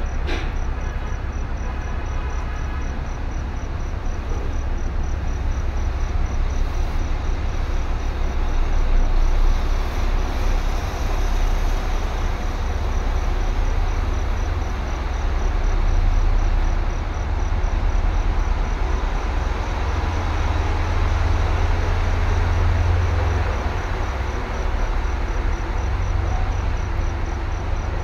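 Steady rumble of a vehicle travelling along the road, heavy in the low end, with a faint high chirp repeating about three times a second.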